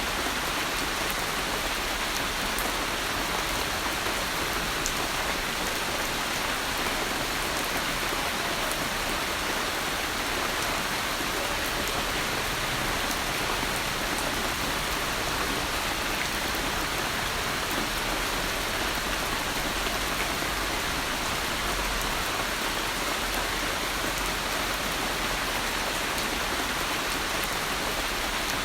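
Steady rain falling on a surface, an even patter with scattered drop ticks.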